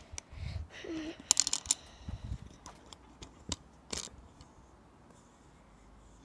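Handling noise of a phone being fiddled with close against clothing: a run of sharp clicks, taps, bumps and rustles for about four seconds, then only faint background.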